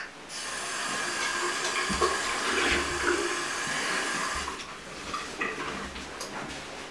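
Bathroom sink tap turned on, water running into the basin as a steady hiss, stopping about four and a half seconds in.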